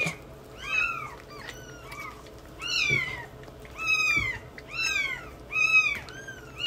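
Newborn kittens mewing over and over, about two high, thin cries a second, each one rising and then falling in pitch, during bottle-feeding of milk.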